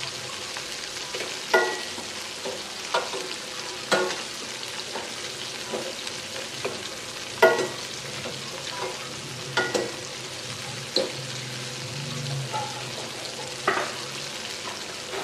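Water boiling in a stainless steel pot over a gas burner, a steady bubbling hiss. A metal ladle clinks and scrapes against the pot several times, some strikes ringing briefly, as boiled cucumbers are lifted out.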